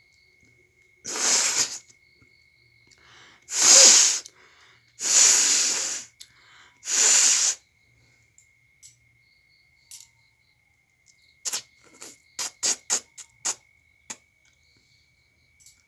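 A woman expelling air hard through her nose in four loud blasts of under a second each, then a quick run of about eight short, sharp nasal puffs. Crickets chirr steadily underneath.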